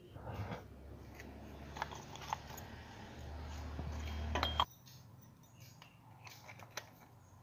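A new spin-on oil filter being screwed by hand onto its mount: rubbing and small metallic clicks over a low rumble that builds and then cuts off suddenly about four and a half seconds in, followed by fainter clicks.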